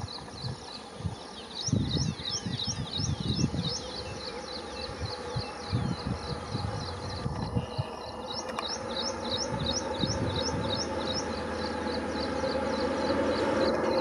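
A rapid series of high, rising chirps, about four a second, breaks off briefly in the middle, over irregular low thumps. A DEMU diesel multiple unit's engine approaches, growing steadily louder over the second half.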